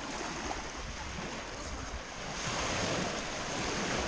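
Shallow sea water washing and lapping, with wind noise on the microphone; the wash grows louder a little past halfway.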